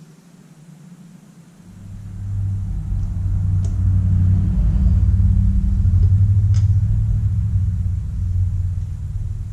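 A motor-driven machine running with a steady low rumbling hum that starts about two seconds in and eases off near the end, with a couple of light metallic clicks.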